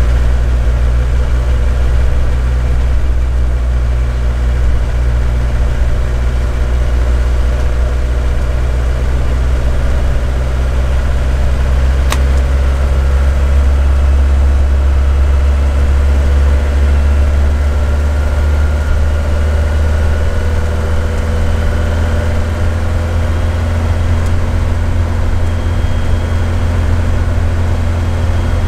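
A 1977 Mercedes 206D van's four-cylinder diesel engine running steadily under way, heard from inside the cab with a strong low drone and road noise. A single brief click comes about twelve seconds in.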